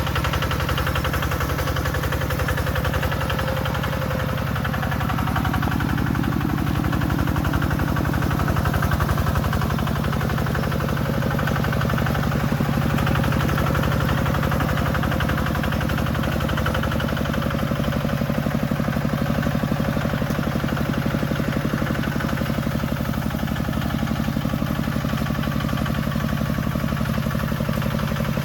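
Tractor engine running steadily with a fast, even beat, swelling slightly about eight seconds in.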